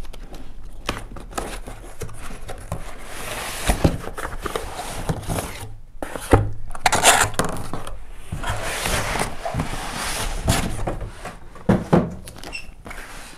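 Cardboard packaging being opened and unpacked on a table: rubbing and scraping of cardboard flaps and boxes, with several sharp knocks as a small cardboard box and a polystyrene foam packing insert are set down.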